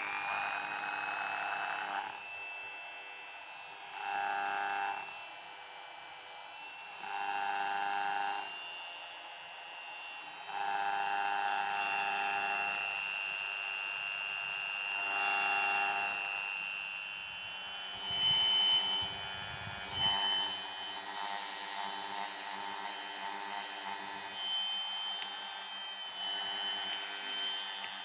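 Mollar MG-007 mini grinder (a small handheld rotary tool) running at steady speed with a high whine. An extra buzzing tone cuts in and out every two to three seconds; this is the strange noise the owner counts as a flaw of the tool. Around two-thirds of the way through come a couple of low, rough knocks.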